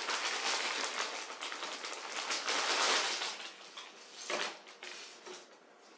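Clear plastic packaging bag crinkling and rustling as it is opened and the underwear inside is handled, a dense crackle for about three seconds that then thins out, with one short rustle a little after four seconds.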